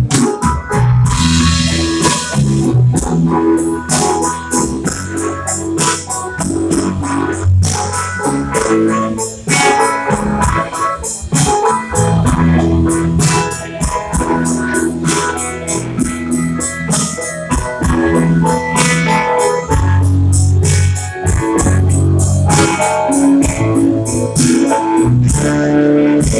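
A live band playing: guitar and drum kit, with keyboard and bass underneath, a steady beat throughout.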